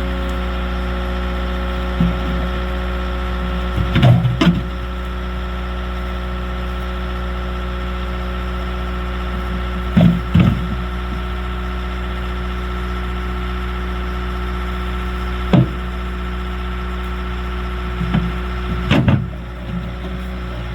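Skid steer's diesel engine running steadily, with a handful of loud clunks and knocks, several in quick pairs, as the machine handles rocks.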